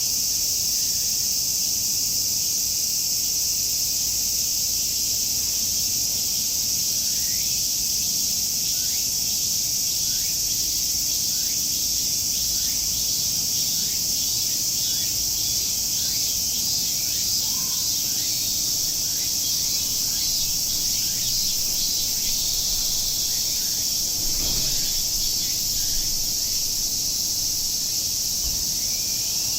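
Cicadas calling in a dense, steady high-pitched chorus. A bird repeats short rising notes about once a second through the middle stretch.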